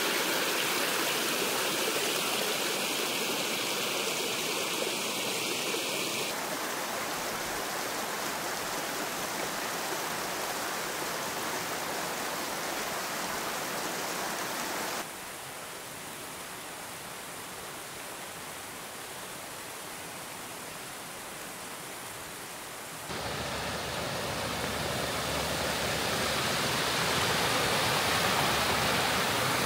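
Steady rushing noise of a waterfall and its stream. The tone and loudness shift abruptly three times, and the middle stretch is quieter.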